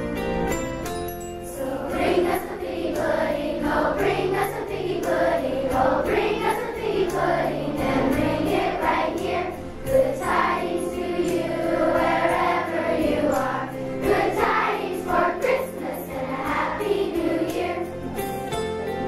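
Children's choir singing a Christmas song with instrumental accompaniment. The instruments play alone briefly at the start and again near the end.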